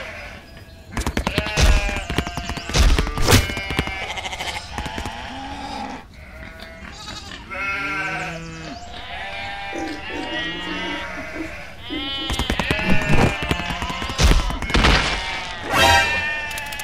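Goats and sheep bleating over and over, many short wavering calls overlapping, with louder, pulsing bleats about a second in and again near the end.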